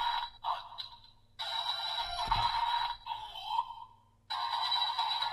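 Bandai DX Demons Driver toy belt from Kamen Rider Revice playing its electronic sound effects and music through its small speaker, thin and without bass, in several bursts with a brief break about four seconds in. This is the belt's attack sequence, triggered after a vistamp has been added.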